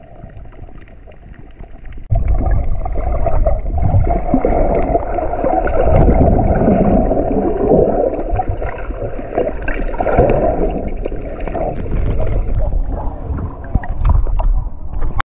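Muffled underwater water noise picked up by a submerged action camera: rushing, gurgling water around the swimmer. It jumps suddenly much louder about two seconds in.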